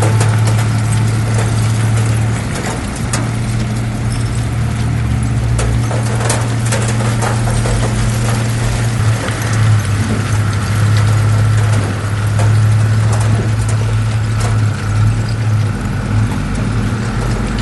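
Heavy diesel earthmoving machinery running steadily under load, with scattered metallic clanks and rattles.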